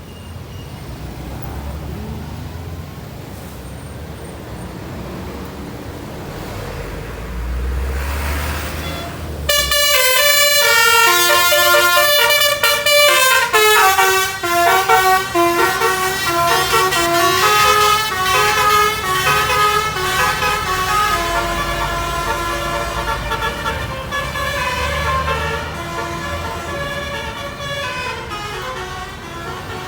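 Low vehicle rumble, then about nine and a half seconds in a bus's Basuri telolet horn, the Indonesian multi-tone musical horn, starts loudly and plays a quick melody of stepped notes that runs on, easing off slightly near the end.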